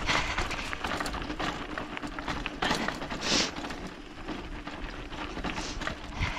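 Lapierre Edge 229 mountain bike rattling and clattering over a rough, stony trail on a fast descent, a dense irregular stream of knocks and clicks. A brief rush of wind hiss on the microphone comes about three seconds in.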